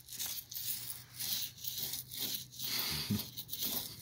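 Paint roller being rolled back and forth over a boat's hull, one noisy stroke about twice a second.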